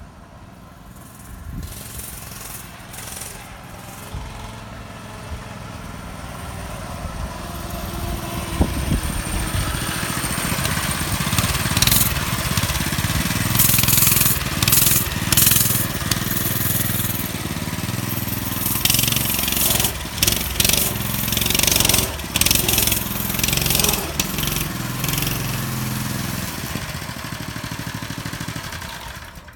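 Mini bike's small gasoline engine getting louder as it rides up from a distance, then running close by with the revs rising and falling. Short bursts of rushing noise come and go in the second half and are the loudest sounds.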